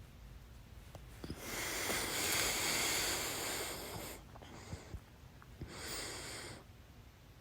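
A person breathing close to the microphone: one long, loud breath of about three seconds, then two shorter breaths.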